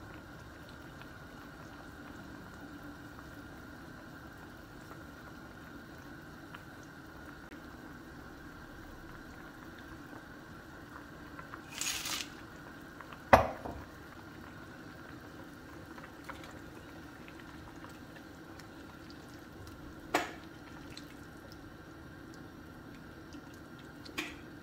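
Lamb and vegetable stew simmering in a pot with a faint steady bubbling. About twelve seconds in, boiled chickpeas are poured in with a short splash, followed a second later by a sharp knock; two smaller knocks come later.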